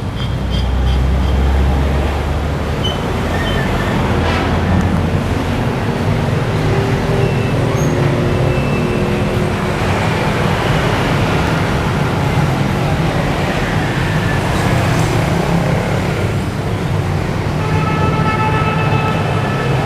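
Busy road traffic: vehicle engines running with a steady low rumble, and a horn sounding near the end.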